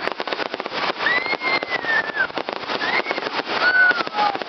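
Fireworks display: a fast, unbroken run of bangs and crackles, with high calls gliding up and down over it.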